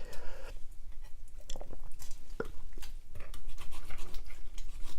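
Large kitchen knife cutting through a roasted chicken on a cutting board: soft scraping and cutting sounds, with a few sharp clicks of the blade against the board.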